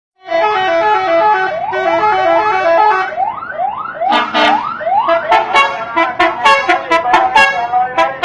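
Telolet multi-tone musical bus horn playing a stepping melody, then a run of rising siren-like swoops about three seconds in, then a string of quick short toots.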